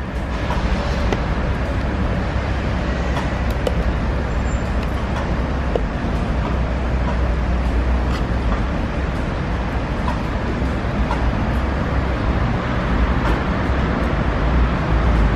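Steady low background noise throughout, with a few light clicks and taps as a screwdriver and plastic trim tool work the mirror cap's retaining clips loose.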